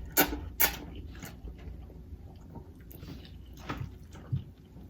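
Close-up mouth sounds of someone eating noodles: chewing, with a few sharp wet smacks in the first second or so, then quieter chewing.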